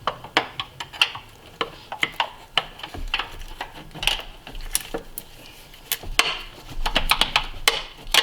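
Irregular metallic clicks and clinks of a hand wrench working on a stuck fuel-line fitting under the hood.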